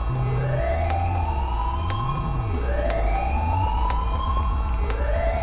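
Countdown timer soundtrack: a siren-like wail that rises and levels off, repeating about every two and a half seconds, over sharp ticks once a second and a low pulsing drone.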